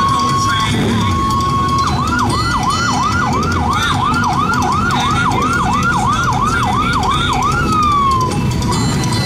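Electronic siren: a steady tone broken twice, then a fast repeating rising yelp, about two or three sweeps a second, ending in a falling glide near the end. Motorcycle engines run underneath.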